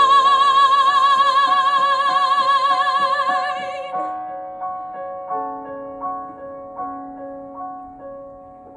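A woman's voice holding a long sung note with vibrato on the word "shine", ending about four seconds in. Piano accompaniment then continues alone, with notes struck about every three-quarters of a second, fading.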